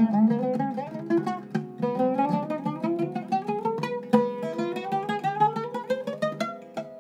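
Iraqi-style oud with a cedar top and mahogany-and-wenge back, played solo in fast plucked runs across the whole fingerboard. The notes twice climb steadily up in pitch.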